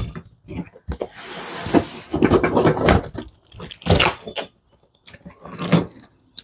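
Cardboard boxes being opened by hand: packing tape slit and pulled, a hissing stretch of tape and wrapping rustling, then a few short knocks and scrapes of cardboard.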